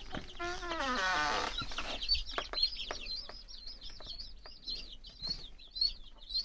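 A drawn-out creak falling in pitch as a wooden coop door swings open, then a brood of young chicks peeping: a rapid, continuous run of short high peeps.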